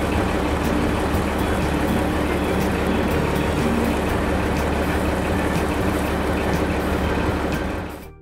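Asphalt paver sound effect: a heavy machine running with a steady low rumble and a light clatter, fading out quickly near the end as it moves away.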